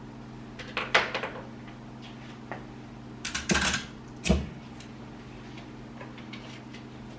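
Handling noises at a workbench: a cluster of sharp clicks about a second in, a short rustle around three and a half seconds, and a single knock just after four seconds, over a steady low hum.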